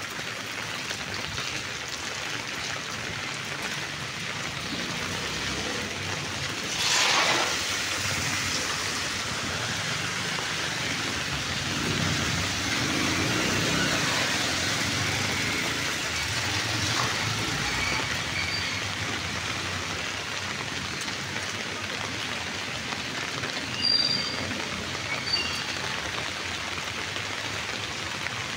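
Steady rain with traffic passing on wet, flooded road. One vehicle swishes by close about seven seconds in, another rumbles past a few seconds later, and a few short high-pitched sounds come near the end.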